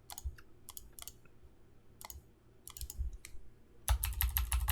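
Sharp clicks of a computer mouse and keyboard, scattered at first, then a quick run of key clicks near the end.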